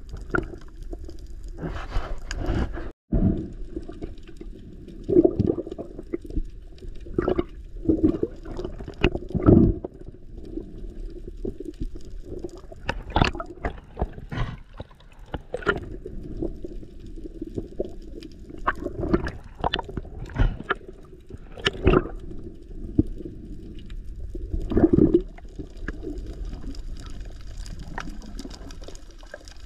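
Muffled underwater sound heard through a camera housing: water swishing and gurgling with many irregular knocks and bumps, and a brief break about three seconds in.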